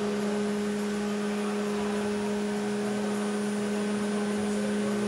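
Steady machine hum: a constant low tone with a higher overtone over an even hiss, unchanging throughout.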